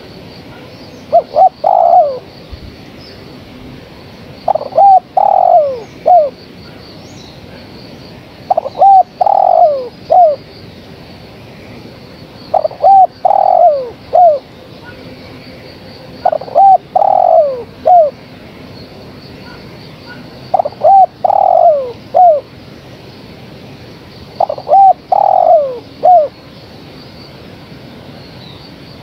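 Female spotted dove cooing, calling for a male: a phrase of several short, falling coos, repeated about every four seconds.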